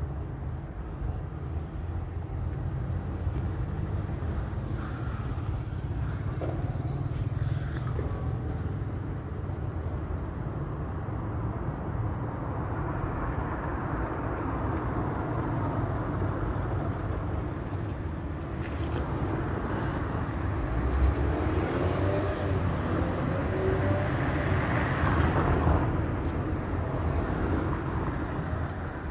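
Outdoor street noise: a steady low rumble of passing traffic, with a vehicle passing louder about three-quarters of the way through.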